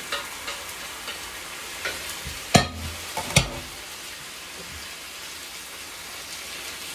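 Nopales, onion and chiles frying in lard in a pan, a steady sizzle as a wooden spoon stirs them. Two sharp knocks come about two and a half and three and a half seconds in.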